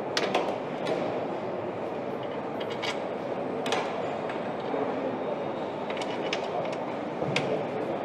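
Factory assembly-line ambience: a steady mechanical din with scattered sharp metallic clicks and clinks of parts and tools, the sharpest about halfway through and again near the end.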